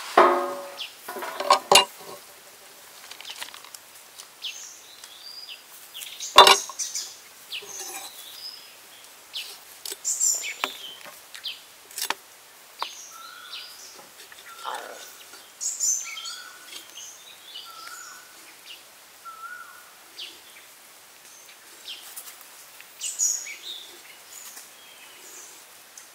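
A metal tray set down with a brief ringing clatter, then scattered knocks and light cutting sounds of a cleaver scoring the skin of a whole Muscovy duck, the loudest a sharp knock about six seconds in. Birds chirp throughout, with a run of five short evenly spaced calls in the middle.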